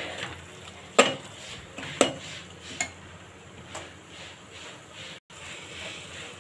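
Steel spoon stirring thick masala paste in an aluminium cooker pot, knocking and scraping against the metal about once a second, over the faint steady sizzle of the paste frying in oil.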